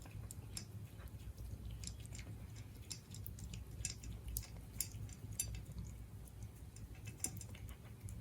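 Siberian cat chewing its food close to the microphone: irregular crisp clicks and crunches, a few every second, over a low steady hum.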